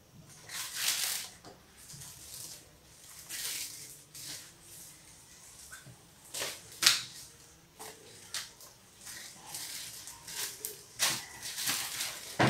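Thin warqa (brick) pastry sheets rustling and crinkling under the hands as they are pressed, smoothed and tucked. A series of short papery swishes, with a sharper crackle about seven seconds in.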